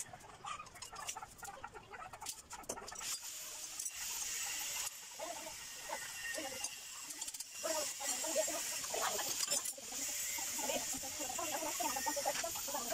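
Sped-up time-lapse audio: a fast, high-pitched chirping jumble of squeaky voices and scattered clicks from the work.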